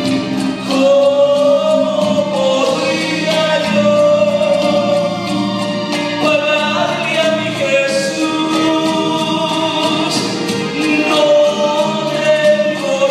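Man singing a gospel song into a handheld microphone over recorded backing music, holding long notes and gliding between them.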